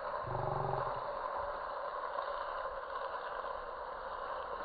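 Sausages sizzling steadily in a flat steel pan over an open wood fire.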